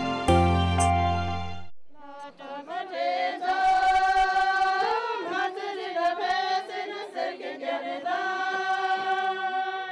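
Instrumental background music with a steady bass line cuts off under two seconds in. After a short gap, a group of Sherpa women sing together in unison, their voices gliding between notes and holding long tones toward the end.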